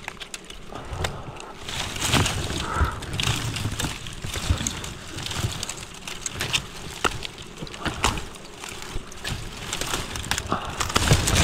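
Scraping, rustling and many small knocks and clicks of a person clambering up a rock face.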